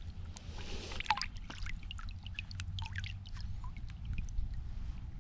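Water dripping and trickling around a kayak: irregular small drips and ticks, with a short splashy rush about half a second in, over a steady low rumble.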